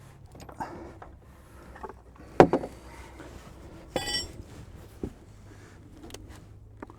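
Metal hand tools knocking and clicking against the tractor while working a seal loose. There is a sharp knock about two and a half seconds in and a ringing metal clink about four seconds in.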